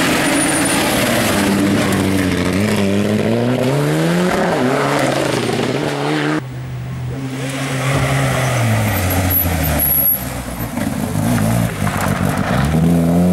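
Rally car engine revving hard through the gears, its pitch climbing and dropping back with each shift. About six seconds in the sound drops off suddenly and the engine note falls. Near the end it rises again under fresh acceleration.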